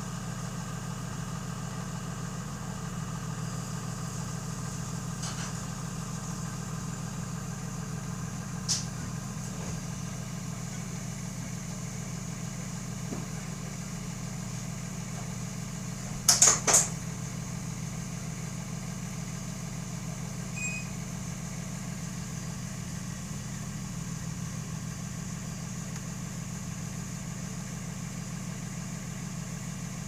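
Blue Bird school bus engine idling, a steady low drone. A quick cluster of sharp clicks about halfway through, with single fainter clicks earlier.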